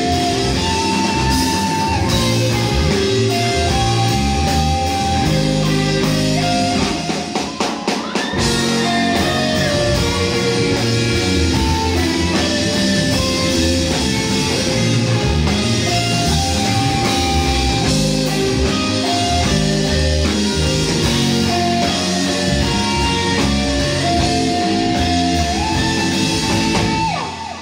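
Live rock band playing electric bass, guitar and drums, with a brief broken-up break about seven seconds in. The music stops abruptly near the end as the song finishes.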